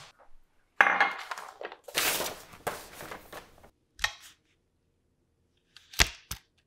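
A loud thump about a second in, then paper rustling. Near the end come two sharp clicks as a pen is picked up.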